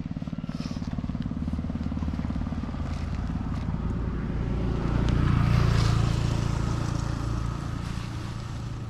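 A motor vehicle engine running, steadily at first, growing louder about five seconds in and then fading away, as a vehicle passing by on the road.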